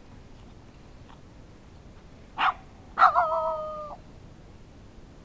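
A Shiba-type dog gives one short bark, then half a second later a drawn-out howling bark that lasts about a second, its pitch sliding slightly down.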